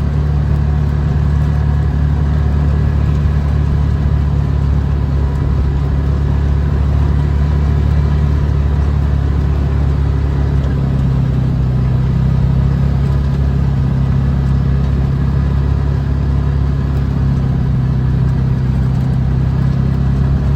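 A vehicle engine running steadily with a low drone, its pitch settling slightly lower about halfway through.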